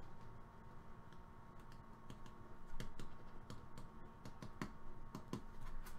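Pen writing on a slip of paper on a wooden desk: a faint, irregular string of light taps and scratches from the pen tip, growing busier after the first second or so.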